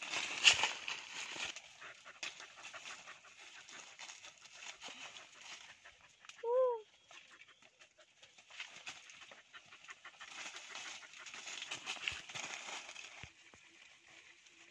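Leaves and branches rustling and crackling as a pet monkey scrambles through dry leaf litter and up into a tree, with a single short animal call about halfway through.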